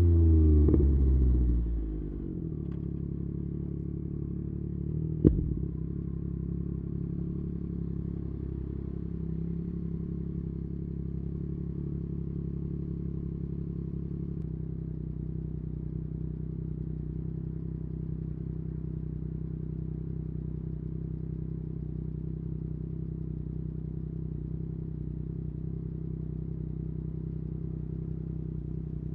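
Yamaha MT-09 three-cylinder motorcycle engine dropping back from a rev to a steady idle, with a single sharp exhaust pop about five seconds in, then idling evenly.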